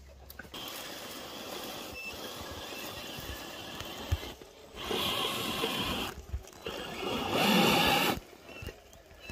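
Radio-controlled crawler truck's electric motor and gears whining as its tyres scrabble up loose dirt, in several spells with short pauses between them, loudest about three-quarters of the way through.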